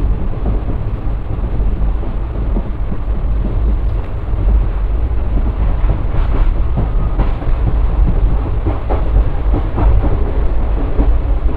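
Passenger train running along the track, heard from aboard: a steady, loud rumble of wheels on the rails with scattered clicks and clatters.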